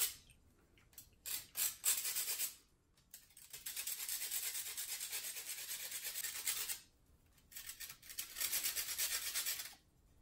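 Small kitchen knife scraping the outer crust off a pretzel rod to whittle it to a point, in quick repeated strokes. The scraping comes in several runs broken by short pauses.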